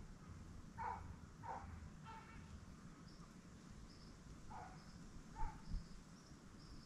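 Faint outdoor animal sounds: repeated short calls and a string of high, short chirps from about three seconds in, over a low rumble. Two low thumps come about five and a half seconds in.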